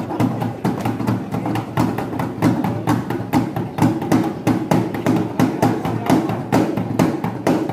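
Drums of a traditional silat accompaniment ensemble playing a quick, steady beat of sharp strikes, about four a second, over a steady pitched tone.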